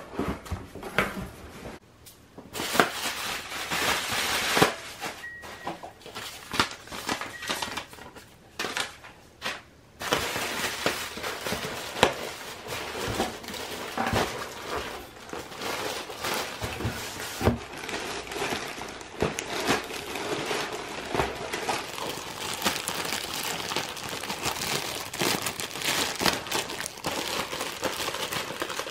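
Plastic shipping packaging crinkling and rustling as it is handled by hand: inflated air-pillow cushioning and a clear plastic poly bag. The sound comes in irregular crackling bursts, with a quieter pause about a third of the way through.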